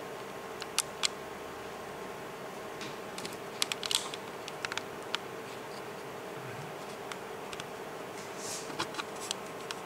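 Quiet room tone with a steady hum, and scattered small clicks and taps, several in a row around four seconds in.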